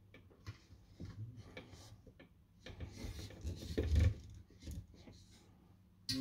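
Hands working a wooden beehive frame held in a wiring jig: light rubbing and small clicks of the wood and wire, with a few heavier low knocks about four seconds in.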